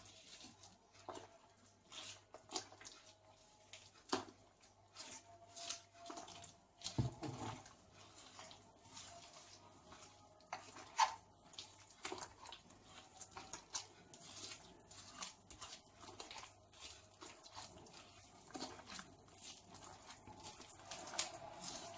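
Butter, sugar, oil and eggs being mixed by hand in a bowl: a utensil clicks and taps irregularly against the bowl over a soft wet squelching of the mixture.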